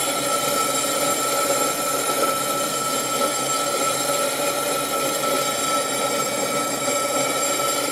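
Fused glass plate being ground edge-down on a wet flat lap wheel: a steady grinding with a high, unchanging whine.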